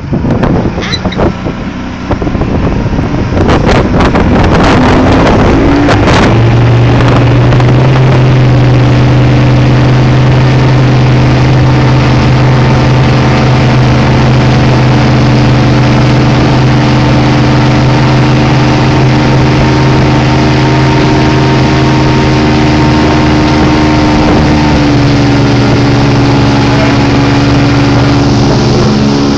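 1999 Mercury Optimax 225 outboard, a direct-injected two-stroke V6, accelerating hard to get the boat up on plane. After a few seconds at low speed the throttle opens, and the engine note climbs over a couple of seconds before settling into a steady high-rpm drone. It drops slightly a few seconds before the end.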